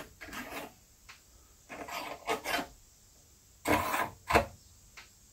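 Metal scraping and rubbing from a hand-operated brake-line flaring tool clamped in a vise as a steel brake line is set and clamped in its die. It comes in several short bursts, the loudest about four seconds in, with a single tick near the end.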